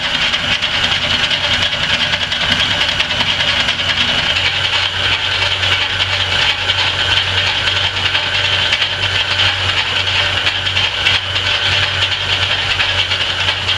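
Antique Rockford metal lathe running while its tool bit takes a facing cut across a spinning steel flat bar held in the chuck: a steady machine hum under a high, even cutting hiss.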